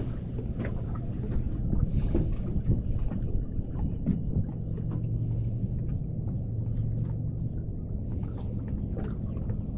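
A steady low motor hum aboard a small fishing boat, with scattered knocks and clicks of handling in the boat.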